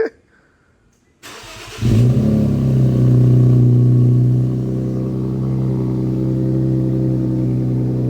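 Infiniti Q50's twin-turbo V6 cranking on the starter for well under a second, then catching about two seconds in, flaring to a high idle and settling into a steady idle. This is the first startup on freshly fitted AMS lower downpipes and a Remark axle-back exhaust, and the exhaust note sounds a little bit deeper.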